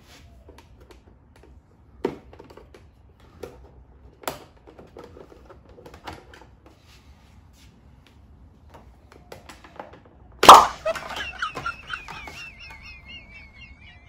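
A few light clicks of a plastic pry tool working against a Volkswagen Passat's side-mirror cap, then one loud sharp snap about ten seconds in as the cap's plastic clips let go and it pops off the mirror.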